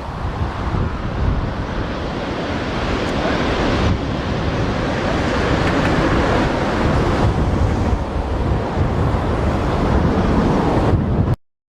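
Strong gusty wind buffeting the microphone over a steady rushing roar, cutting off suddenly near the end.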